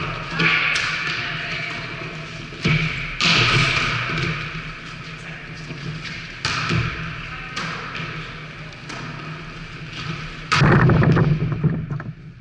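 A volleyball rally: the ball is struck by hands several times, sharp thuds every second or two that echo in a large gym hall, with a louder stretch of impacts near the end.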